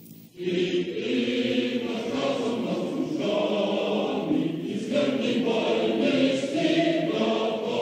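A large crowd of men singing together like a massed choir, in long held notes.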